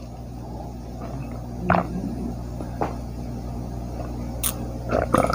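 A person drinking water from a plastic bottle: a few faint swallows about a second apart over a steady low hum, then a quick run of small mouth clicks near the end.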